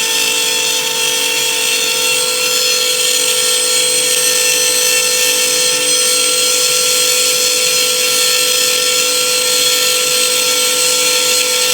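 CNC router spindle running at a steady high whine while its bit mills a wooden cutting board, with a constant cutting hiss under the tone.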